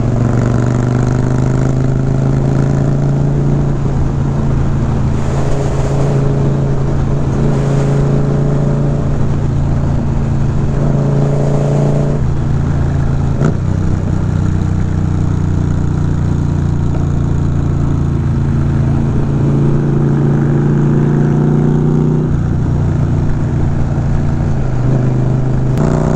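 Indian Scout Bobber's V-twin engine and exhaust running at cruising speed, heard from the handlebars with wind rushing over the microphone. The engine note shifts in pitch several times as the throttle and gears change.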